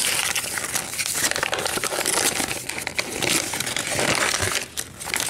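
Folded paper checklist leaflet crinkling and rustling as it is unfolded by hand, a dense run of crackles that thins out near the end.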